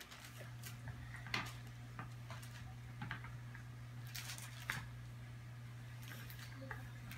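Wooden rolling pin pressing cookie dough between sheets of wax paper: faint rustling of the paper and a few light knocks, over a steady low hum.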